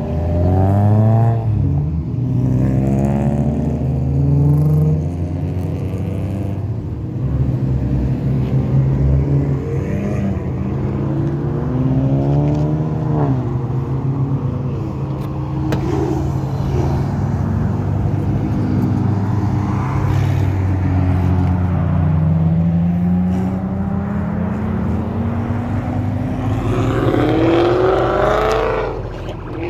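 Cars revving and accelerating away one after another, their engine notes repeatedly climbing and dropping, with one long climbing pull near the end.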